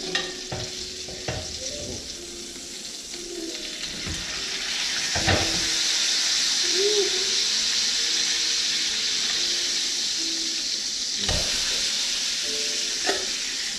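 Steak sizzling in a cast-iron skillet, with a clack of metal tongs about five seconds in after which the sizzle grows louder. The sizzle drops back sharply about eleven seconds in.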